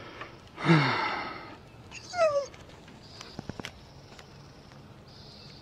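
A dog gives two short calls: a bark about a second in, then a high whining yelp that falls steeply in pitch about two seconds in.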